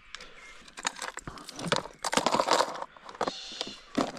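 Irregular clicks and light metallic rattling from fishing tackle being handled close to the microphone, with a louder rustling patch about two seconds in.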